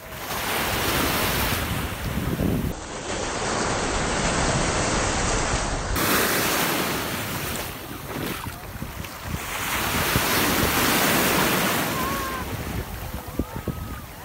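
Shallow sea surf washing in and out at the shoreline, swelling and ebbing every few seconds, with wind buffeting the phone's microphone.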